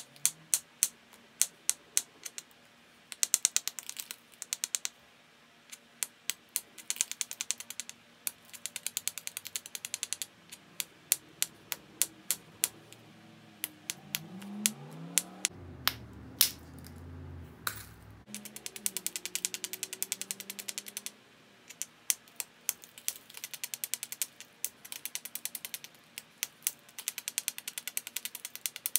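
Edge work on a small flint biface held in a leather pad: fast bursts of sharp stone clicks and scraping ticks, broken by louder single clicks. A low rumble that rises and falls in pitch comes in about halfway through for a few seconds.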